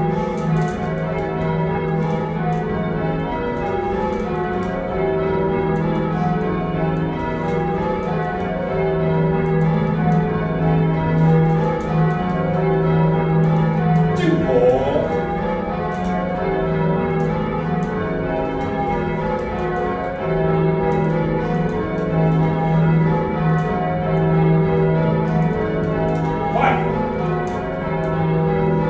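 A heavy ring of six church bells, cast by John Taylor & Co in 1925 with a tenor in E-flat, rung full circle, striking one after another in a steady, even rhythm. Heard from the ringing chamber below the bells.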